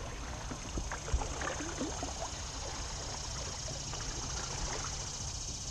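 Paddling in a plastic sit-on-top kayak: paddle strokes and water lapping and splashing against the hull, with a couple of light knocks about a second in.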